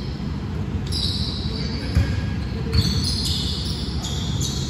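Basketball thumping on the gym court during a game, with two sharper bounces about two seconds in, and short high squeaks of sneakers on the floor.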